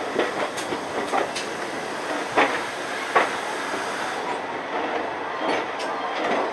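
Passenger train coach rolling slowly into a station, heard from its open doorway: a steady running rumble with irregular sharp clacks of the wheels over rail joints, the two loudest about two and a half and three seconds in.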